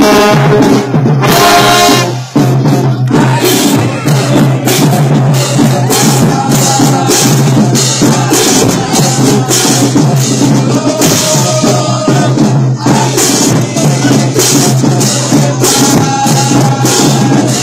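Band music with a dense, steady drum beat over a held low note and sustained melody notes.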